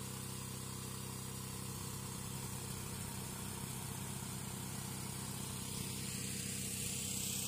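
An engine running steadily with a low, even hum, over a constant hiss of water and air gushing up out of a borewell casing.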